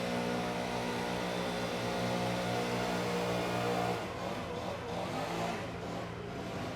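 Leaf blowers running with a steady engine note. About four seconds in, the steady note drops away and the sound turns rougher and a little quieter.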